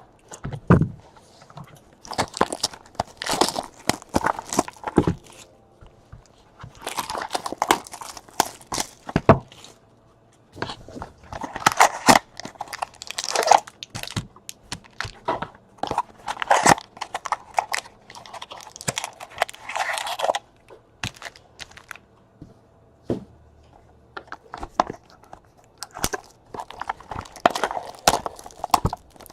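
Trading-card packaging being torn open and handled: bursts of crinkling and tearing with sharp clicks, coming in clusters of a few seconds with short pauses between.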